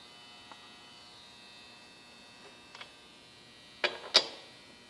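Steady electrical hum with a faint high whine. Near the end there are two sharp clicks about a third of a second apart.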